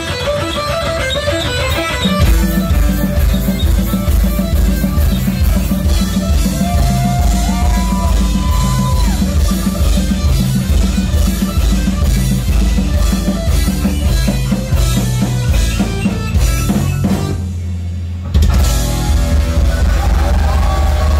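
Live heavy metal band playing an instrumental: distorted electric guitar over bass and a drum kit. About seven seconds in, a held note bends up in pitch. Near the end the band drops out briefly, then crashes back in loud.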